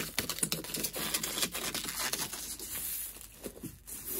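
Clear protective plastic film being peeled off a basketball backboard, crinkling and crackling as it comes away, denser at first and thinning out near the end.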